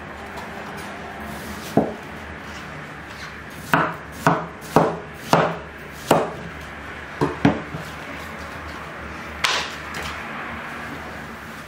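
Cleaver chopping watermelon on a wooden cutting board: a single knock, then a run of five chops about half a second apart, two quick ones, and a last knock near the end.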